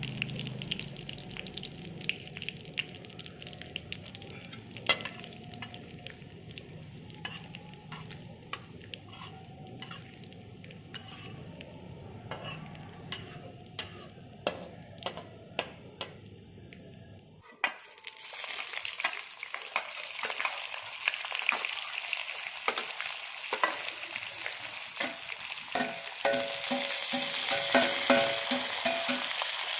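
A spoon or spatula clicking and scraping in a cooking pan over a low hum, then, a little past halfway, a loud sizzle of food frying in hot oil starts abruptly and carries on while it is stirred.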